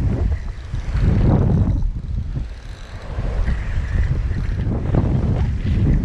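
Wind buffeting the microphone, with waves surging and breaking against shoreline rocks, the rush swelling and easing.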